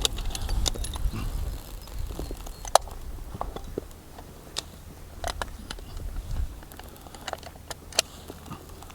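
Scattered sharp clicks and small knocks from handling a target rifle and its gear, over a steady low rumble; the two sharpest clicks come about three seconds in and near the end.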